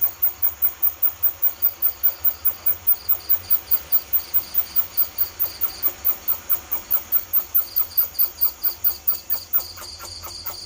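Rat-luring call imitating a bandicoot rat: rapid, high-pitched squeaking chirps repeated evenly at about five a second. The chirps stop shortly before the end.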